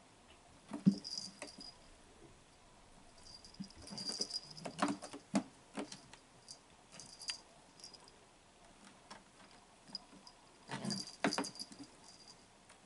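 Cats playing on a cat tower: scattered knocks and thumps, with bursts of a high, jingling ring, loudest about a second in, around the middle and near the end.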